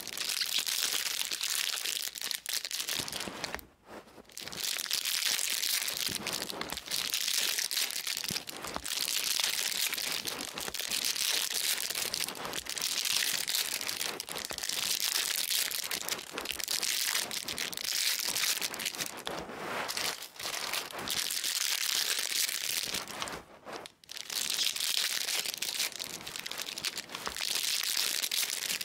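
Foil trading-card pack wrappers crinkling and tearing as packs are ripped open by hand: a dense, steady, crackling rustle. It pauses briefly about four seconds in and again about twenty-four seconds in.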